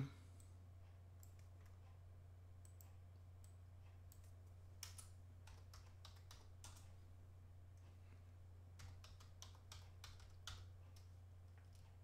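Faint computer keyboard keystrokes in short irregular runs, a cluster about five to seven seconds in and another near the end, over a low steady hum.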